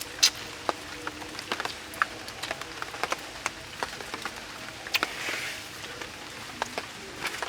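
Eating sounds: irregular sharp clicks and wet smacks of chewing and mouth noises, several a second, with a brief airy hiss about five seconds in.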